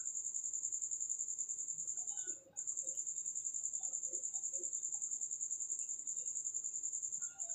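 Cricket chirping in a steady, rapid high-pitched trill that breaks off briefly about two and a half seconds in, with faint scattered chirps underneath.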